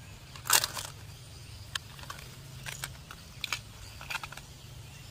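Plastic Plarail toy train track pieces clattering and clicking as they are handled and laid down. A louder clatter comes about half a second in, followed by scattered sharp clicks.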